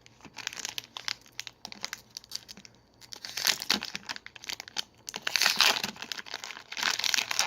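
A trading-card booster pack's wrapper crinkling and cards being handled: light clicks and sliding at first, then louder bursts of crinkling about three, five and seven seconds in.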